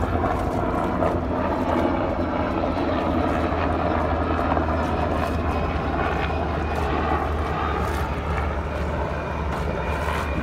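Helicopter flying overhead, its rotor and engine noise steady and loud.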